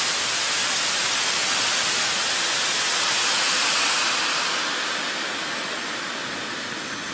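Small turbojet engine of a radio-controlled model jet running with a loud, even hiss. It eases off about four seconds in, and a high whine falls in pitch near the end.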